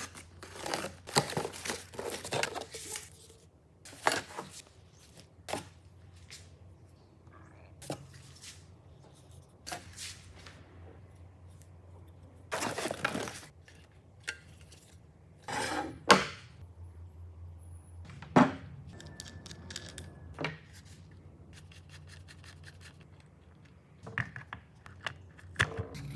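A knife slitting the packing tape on a cardboard box, with cardboard rustling, then scattered clicks, knocks and rustles of the plastic and steel parts of an angle-grinder circular-saw bracket being unpacked, handled and fitted. The sounds come in short separate bursts, over a low, steady hum.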